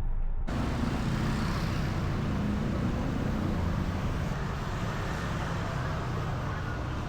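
Street traffic noise: a steady rumble of passing vehicles, starting abruptly about half a second in.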